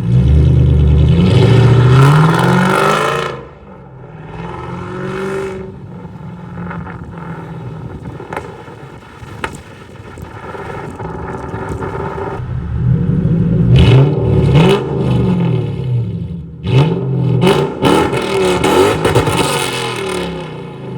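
Lexus GS400's 1UZ-FE V8 with a 2.5-inch straight-pipe exhaust, X-pipe and gutted catalytic converters, being revved. It revs up hard in the first few seconds, then drops back to idle, and is blipped up and down several times in the second half.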